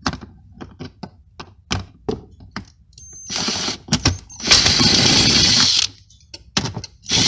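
Knocks and clicks of tools and fasteners against a car's underbody cover, then three short runs of a power tool, the longest a little over a second, as the cover's fasteners are taken out.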